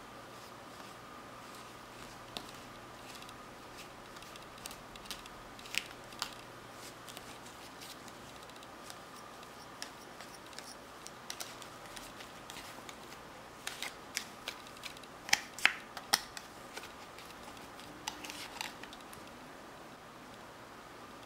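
Small plastic spoon scraping and tapping against a plastic kit tray while mixing powdered candy mix into a crumbly dough: a string of light clicks and scrapes, with a cluster of louder clicks about two-thirds of the way in. A faint steady tone runs underneath.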